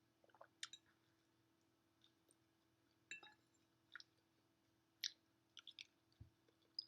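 Quiet close-up eating sounds of mac and cheese being chewed: scattered faint wet mouth smacks and clicks, with a soft low thump about six seconds in.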